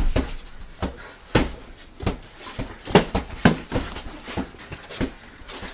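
Boxing gloves smacking against punch pads in an irregular flurry of sharp slaps, about a dozen, with the hardest hits near the middle.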